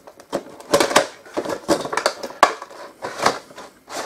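Action-figure window box of cardboard and clear plastic blister being handled and opened: an irregular run of sharp plastic clicks, taps and crinkles.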